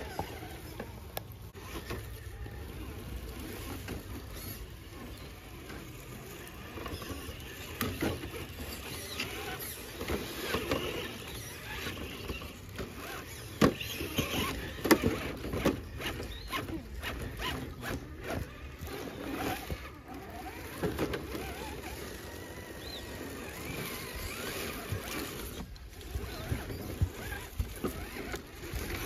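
Small-scale RC crawler trucks working over rock: their small electric motors and drivetrains running, with scattered clicks and knocks of tyres and bodies against the stone, over a low rumble.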